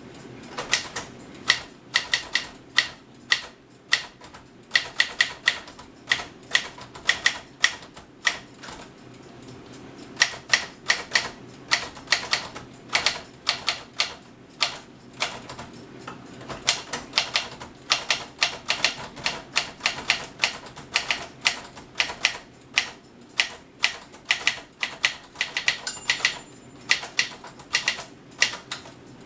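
1966 Smith-Corona Corsair Deluxe portable manual typewriter being typed on: quick runs of sharp key-and-typebar strikes, several a second, broken by brief pauses.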